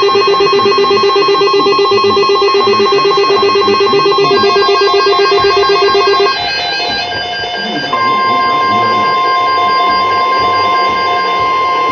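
Emergency alert tones. A rapidly pulsing, ringing electronic alarm at two pitches sounds for about six seconds and breaks off. About two seconds later a steady single-pitch alert tone starts, the weather-radio warning tone that comes before a tornado watch announcement.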